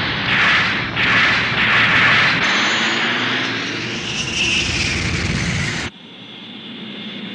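Sci-fi anime battle sound effects: several beam-cannon blasts in quick succession, then a space fighter's jet-engine rush with a rising whine that cuts off suddenly near the end, leaving a quieter hum.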